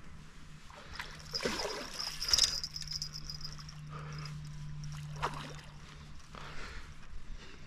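Water splashing at the surface as a hooked fish is played near the bank: one longer burst of splashing a couple of seconds in, then shorter splashes later.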